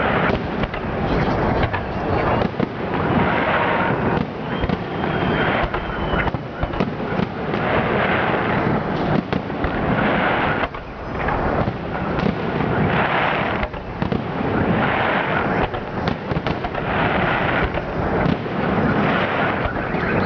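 Fireworks display: a dense barrage of aerial shell bursts, the bangs overlapping into a near-continuous rumble and crackle that swells in waves every second or two.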